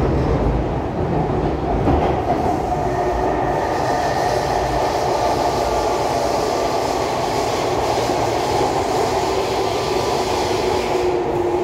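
Kawasaki C151 metro train heard from inside the car, running through a tunnel: steady rail and wheel noise with the multi-tone whine of its GTO traction inverter and motors. The whine slides lower toward the end as the train slows for the station.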